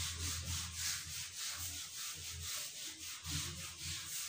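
Whiteboard eraser rubbed quickly back and forth across a whiteboard, wiping off marker writing: a continuous run of short scrubbing strokes, about four a second.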